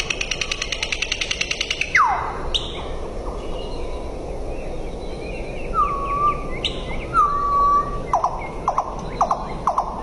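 A nightingale singing: a fast rattle of rapidly repeated notes, then sharp downward-sliding whistles, a quieter run of soft notes, two held piping whistles, and a string of short downward-sweeping notes near the end.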